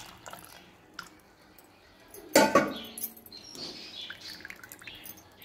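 A metal kitchen vessel knocks once about two seconds in and rings briefly, then rinse water splashes faintly as it is tipped into a pressure cooker.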